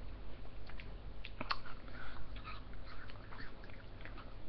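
Mouth sounds of eating an ice lolly: scattered wet smacks, sucks and small clicks, with one sharper click about one and a half seconds in, over a steady low hum.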